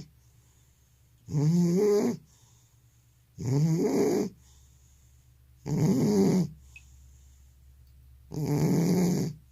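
Elderly cat snoring in its sleep: four long snores, each just under a second, about every two and a half seconds. The owner links the snoring to sleep apnea.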